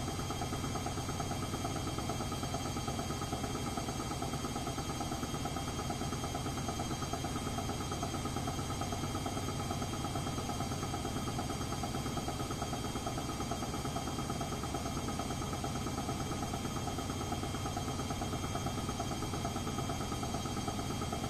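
Edesa front-loading washing machine in its spin cycle, running steadily with a constant motor whine over a fast low rumble; its drum turns on a broken spider arm.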